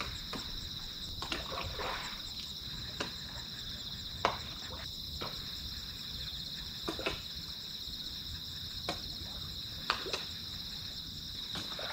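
Night chorus of crickets chirping steadily in two high-pitched bands, with several brief soft knocks scattered through it.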